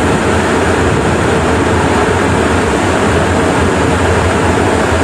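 Room air conditioner running, its fan drawing air through the intake filter in a steady loud rush with a low hum underneath.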